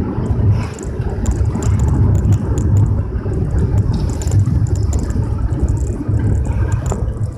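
Vehicle driving along a road: a steady low rumble of engine and road noise, with scattered small ticks and clicks over it.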